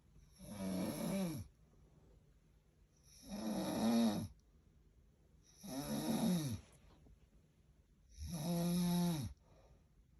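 Snoring: four loud snores about two and a half seconds apart, each about a second long, with a tone that rises and then falls, and quiet pauses between them.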